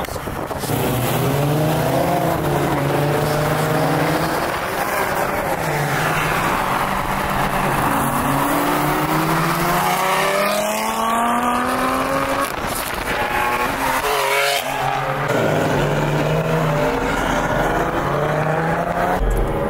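A performance car engine revving hard again and again, its pitch climbing and falling every few seconds over a steady low drone.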